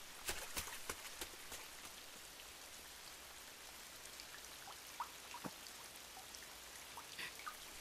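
Faint steady rain, with scattered single drops dripping and plinking.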